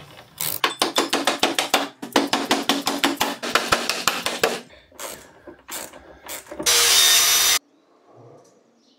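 Hand ratchet wrench clicking rapidly as it turns a bolt, in long runs of fast clicks, followed by a few separate clicks and a loud rasping noise lasting about a second near the end.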